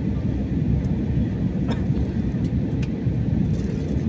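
Steady cabin noise of an Airbus A320-family airliner on approach: a low rumble of engines and airflow heard through the fuselage, with a faint steady hum.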